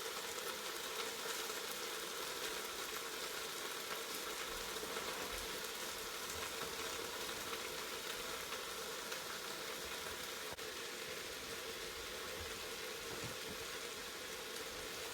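Onion, zucchini, garlic and ginger sautéing in oil in a multicooker pot: a faint, steady sizzle.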